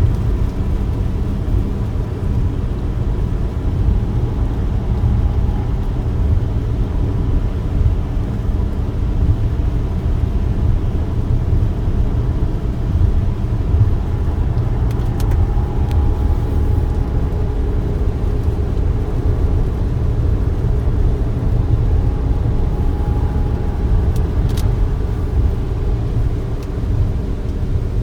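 Steady low rumble of a moving car, heard from inside the cabin, with a couple of faint clicks.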